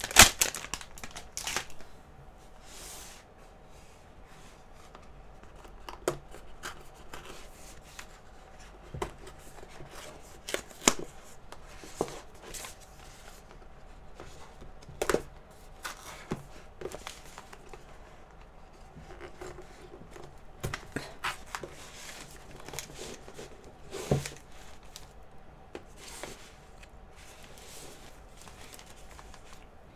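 Cardboard box and paper liner of a castella sponge cake handled and peeled open by hand: scattered paper rustles, crinkles and light clicks, with a few sharper taps.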